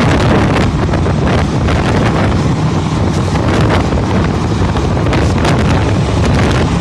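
Loud, steady wind noise buffeting the microphone, a low rumbling rush with frequent brief gusts.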